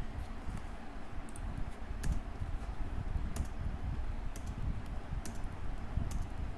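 Keystrokes on a computer keyboard: a dozen or so separate, irregular clicks over a steady low background hum.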